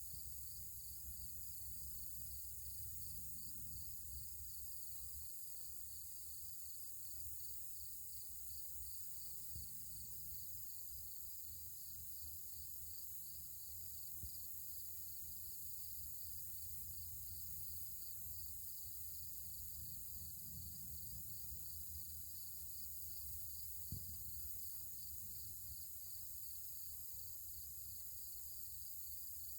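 Insects chirping in a steady, evenly pulsing trill, over a constant high hiss and a low rumble, with a couple of faint ticks.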